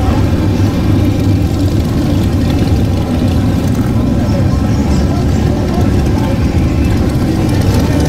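Motorcycles, mostly cruisers and baggers, riding past one after another at low speed. Their engines blend into one continuous, steady drone.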